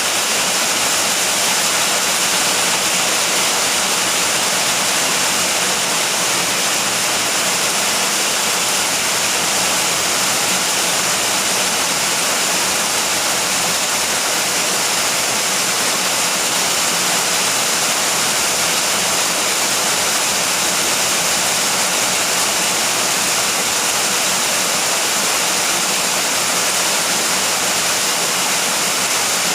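Steady rain falling, a dense, even hiss with no thunder.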